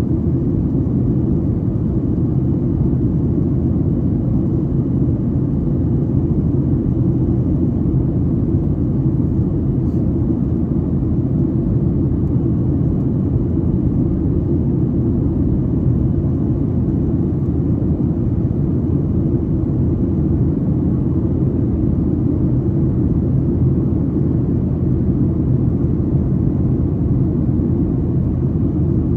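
Steady low rumble inside the cabin of a Boeing 737-800 climbing after takeoff: its CFM56-7B engines and the rushing airflow, unchanging throughout.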